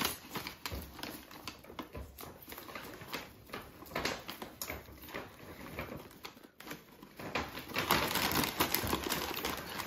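Paper gift bag and curling ribbon being handled as a ribbon is untied: scattered light clicks and rustles, with louder paper rustling over the last couple of seconds.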